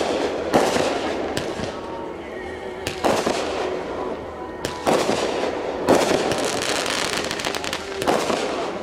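Consumer aerial fireworks going off: a string of sharp booms and pops from launches and bursts, a second or two apart.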